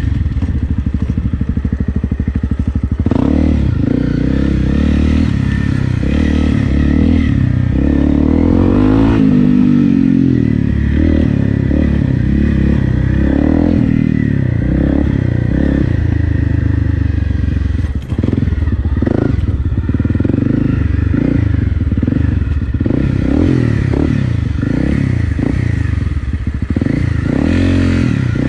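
Honda CRF250 Rally's single-cylinder four-stroke engine through an aftermarket FMF Powercore 4 exhaust, loud, pulling along a dirt trail with the revs rising and falling over and over as the throttle is opened and closed.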